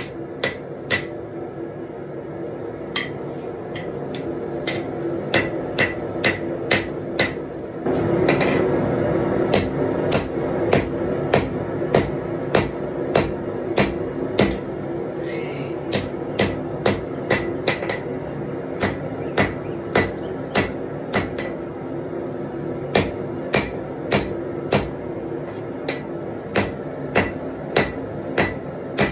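Small straight-peen hammer striking a red-hot steel knife blank on an anvil in a steady rhythm, somewhat more than one blow a second, while the guard material in the choil area is being hand-forged.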